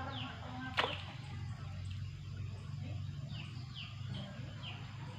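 Birds giving short, falling chirps several times over a low steady hum outdoors, with one sharp swish about a second in.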